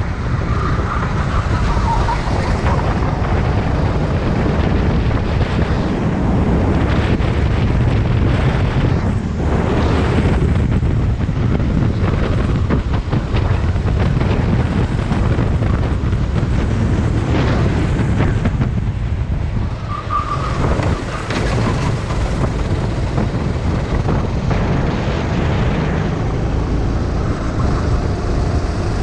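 Rental kart's engine running at racing speed, heard on board, with heavy wind buffeting on the microphone. The sound is steady, with two brief dips in level, one about a third of the way in and one about two-thirds in.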